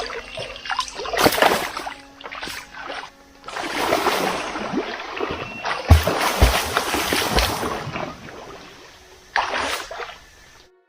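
Water splashing and rushing in irregular surges, under faint background music, with a few low thumps about six to seven and a half seconds in.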